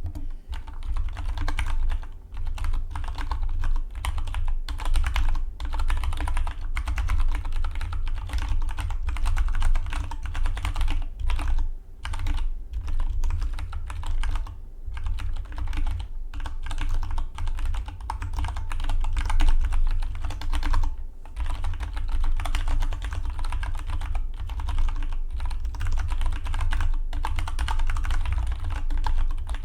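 Fast, steady typing on a Dygma Defy split mechanical keyboard, a dense run of key clicks that starts suddenly and breaks off briefly a few times.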